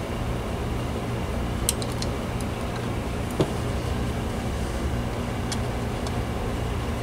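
A steady low mechanical hum, with a few light clicks and one sharper knock about three and a half seconds in.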